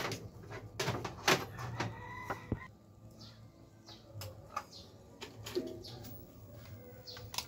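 Chickens clucking in the background, with a few sharp clicks and knocks, the loudest about a second in.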